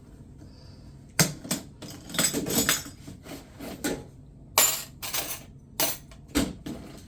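Small metal objects clinking and knocking: Schlage key blanks and lock tools handled and set down while the right blank is sorted out. A run of sharp clicks and clatters, some in quick clusters, starts about a second in.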